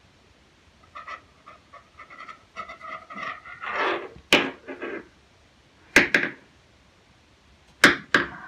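A cleaning patch on a rod scrubbing through the bore of a Bond Arms Snake Slayer IV derringer barrel, in short squeaky strokes, followed by a few sharp clicks and knocks.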